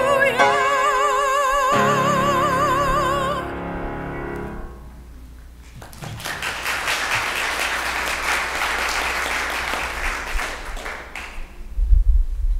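A soprano singing with wide vibrato over piano, holding a final note that ends about three and a half seconds in while the piano closes a second later. After a short hush, about five seconds of applause, then low thumps near the end.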